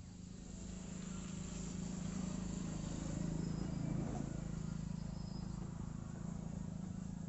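A steady low hum over a faint hiss, growing louder over the first two or three seconds and then holding.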